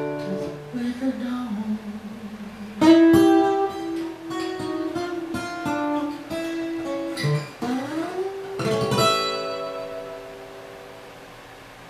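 Solo acoustic guitar playing single notes and chords, with one note sliding upward, then a final chord that rings out and fades away.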